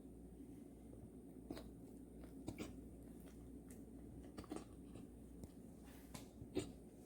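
Golden retriever hiccuping: several short, soft clicks, one every second or two.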